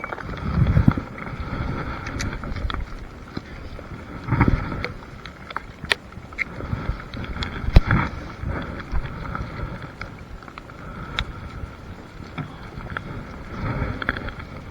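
Gusts of wind buffeting an action camera's microphone, rumbling a few times, over a steady outdoor hiss with scattered sharp clicks and knocks.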